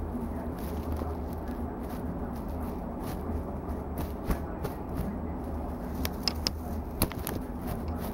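Steady low room hum with scattered small clicks and taps, a few sharper ones about six to seven seconds in.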